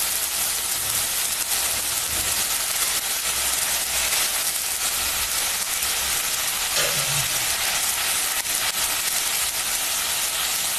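Ginger, garlic and green chilli paste sizzling steadily in hot oil in a steel kadhai, frying in the oil.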